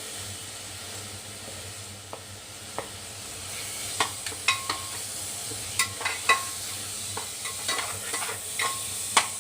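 Onion and spice masala sizzling in mustard oil in a pressure cooker while it is stirred, with a spatula clinking and scraping against the pot from about four seconds in.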